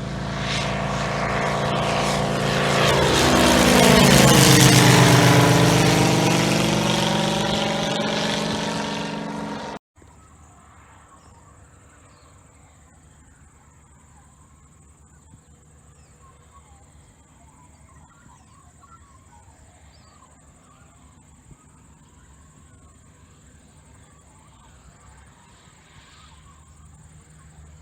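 Rotec R2800 seven-cylinder radial engine and propeller of a Kitfox passing low overhead. Its pitch falls steadily as it goes by and it is loudest about four to five seconds in. It cuts off abruptly at about ten seconds, leaving quiet outdoor background with a steady high-pitched hum and faint chirps.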